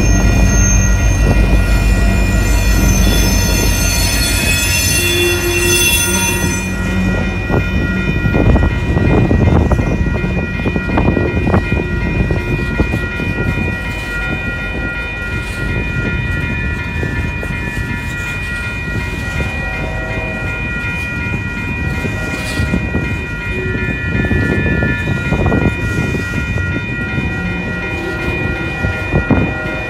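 A Union Pacific freight train passes close by. A mid-train diesel locomotive runs past for the first several seconds, then tank cars roll through with wheels clicking over the rail joints. The grade-crossing bell rings steadily throughout.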